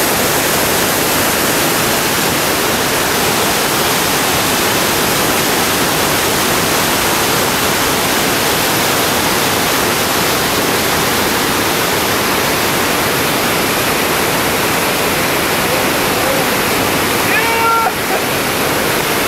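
Whitewater rushing over a rock ledge drop and through a river rapid: a loud, steady rush of water.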